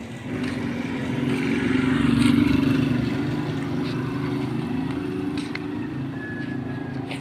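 A motor vehicle's engine passing close by: it grows louder to a peak about two seconds in, then fades slowly.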